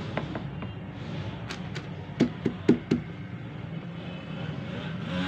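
Plastic toner cartridge parts being handled: a few light clicks, then four sharper knocks in quick succession a little after two seconds in, over a steady low hum.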